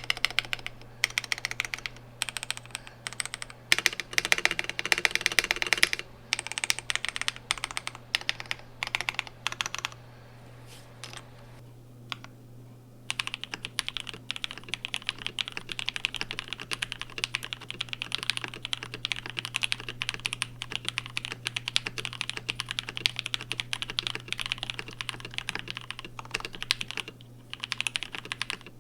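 Fast typing on a KBD67 Lite R2 mechanical keyboard with JWK black linear switches: a dense run of key clacks. After a pause of a few seconds, about ten seconds in, the typing starts again on the same switches lubed with Krytox 205g0 and filmed.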